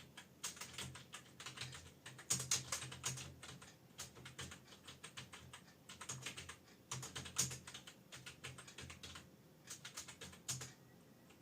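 Fast typing on an external computer keyboard: runs of rapid key clicks broken by short pauses.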